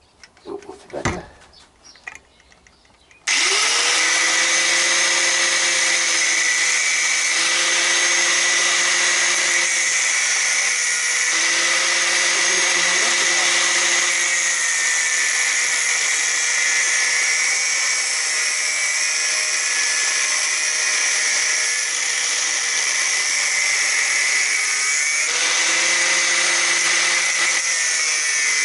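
An angle grinder with a cut-off disc starts about three seconds in and runs steadily, cutting into a metal tube clamped in a vice. Its whine sags slightly in pitch at times as the disc bites into the metal.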